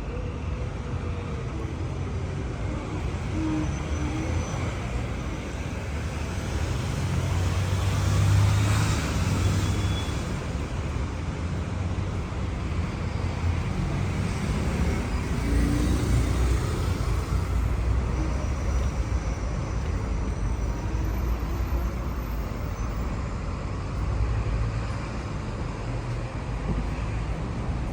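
Road traffic on a busy city avenue: a steady low rumble of cars, with louder swells as vehicles pass close about 8 seconds in and again around 16 seconds.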